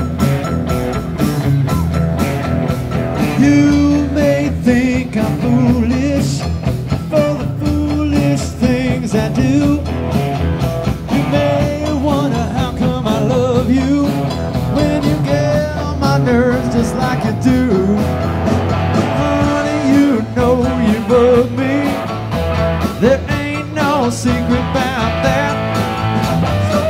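Live rock band playing: keyboard, acoustic and electric guitars, bass guitar and drum kit.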